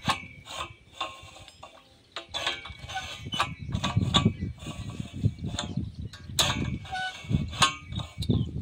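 A hand-worked wooden tripod lever hoist and its chain, used on borewell pump pipes, clanking and creaking with irregular metal clinks. The sound is sparse for about the first two seconds and busier after that.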